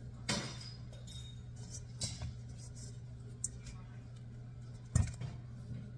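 Hands working dumpling dough in a stainless steel mixing bowl: a few knocks and clinks against the metal bowl, the loudest a dull thump about five seconds in, over a steady low hum.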